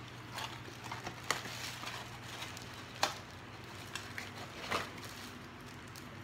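Rustling and light clicks of packaging and small plastic items being handled, with three sharper clicks, over a fan's steady low hum.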